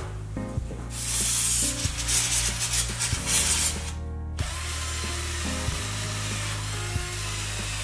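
Rotary wire wheel brush on a handheld power tool, spinning and scouring dirt off an aluminium wheel carrier. It gives a dense, gritty hiss with a brief break about four seconds in, over background music.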